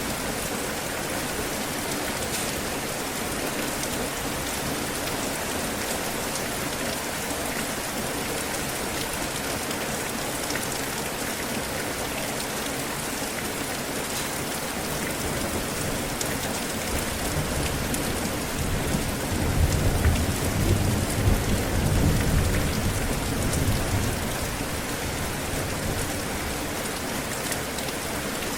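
Steady heavy rainfall hissing on surfaces, with a low roll of thunder that builds about two-thirds of the way through, peaks for several seconds and fades.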